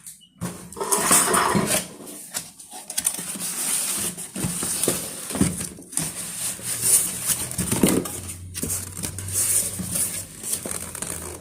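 Kitchenware being handled and set down: irregular knocks, light clinks and rustling.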